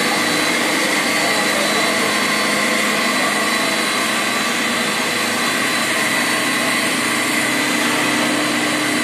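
Plastic recycling extruder line running: a steady machine drone with a high whine on top, unchanging throughout.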